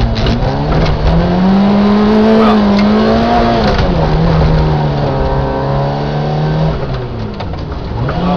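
Peugeot 106 rally car's four-cylinder engine heard from inside the cabin, driven hard with the revs rising and falling through gear changes: the pitch dips near the start, climbs and holds, drops about four seconds in, holds, then dips and climbs again near the end.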